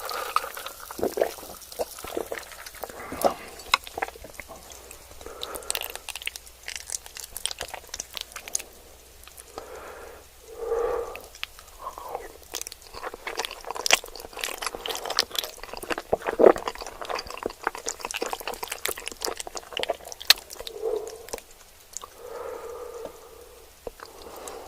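Close-miked eating: chewing and crunching with many sharp crackles, mixed with wet, squishy mouth sounds.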